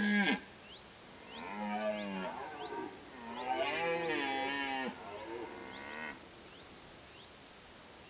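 Red deer stag roaring in the autumn rut: a short roar at the very start, then a run of three long, deep roars that bend in pitch and stops about six seconds in.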